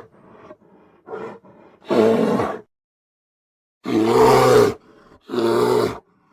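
Grizzly bear roaring: a few low grunts, then three loud roars of under a second each with pauses between them. The roar about four seconds in is the longest and loudest.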